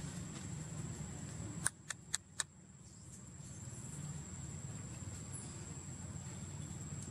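Outdoor ambience: a steady low rumble under a thin, steady high tone, broken about two seconds in by four sharp clicks in quick succession.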